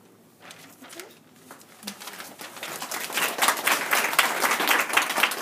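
Audience applauding: scattered claps at first, growing into dense clapping from about two seconds in.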